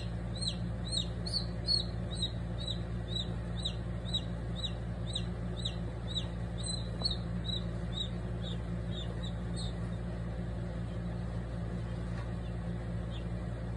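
Domestic chick peeping in distress while held in a South American rattlesnake's bite: a rapid run of high, down-slurred peeps, two to three a second, growing fainter and sparser and stopping about ten seconds in as the envenomated chick weakens. A steady low hum runs underneath.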